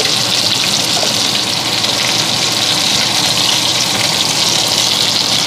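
Beef burger patties frying in hot fat in a cast-iron skillet: a steady sizzle.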